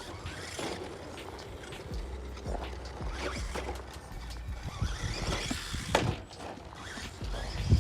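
Team Corally Mammoth SP 1/10-scale brushed 2WD RC monster truck driving on a 3S LiPo: motor and tyres on rough ground with scattered clicks and rattles, and a sharp thump about six seconds in.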